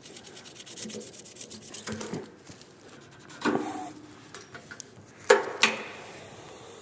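Rubbing and scraping as a motorcycle is worked loose from its shipping packing, with a knock that rings briefly about halfway through and two sharp knocks near the end.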